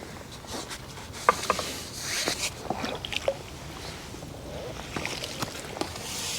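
Scattered light clicks and knocks from pole-fishing tackle being handled while a hooked skimmer is played in, over a faint outdoor hiss.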